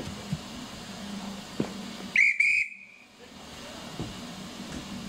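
A single short, loud whistle blast of about half a second, a high tone with a brief break in the middle, about two seconds in, signalling the train's departure from the platform. It sounds over a faint steady hiss of steam.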